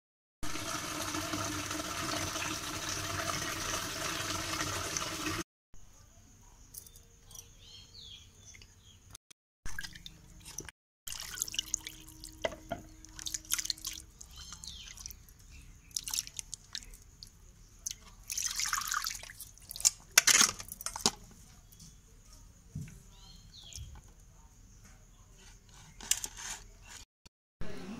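Pieces of raw carp being washed by hand in a steel bowl of water: intermittent splashing, sloshing and dripping, with small knocks against the bowl. It opens with about five seconds of a louder steady droning sound that cuts off abruptly.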